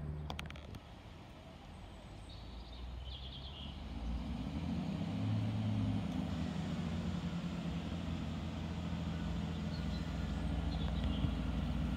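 Chiltern Railways diesel multiple unit approaching, its diesel engines a low, steady drone that grows louder from about four seconds in. A few bird chirps come through briefly.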